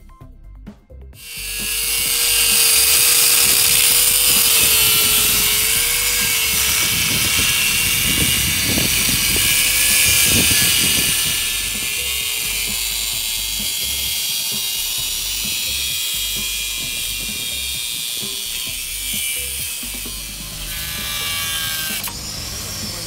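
Angle grinder cutting metal on a quad's steel suspension arm. It starts about a second in and runs as a loud, steady hiss with the motor's wavering whine underneath.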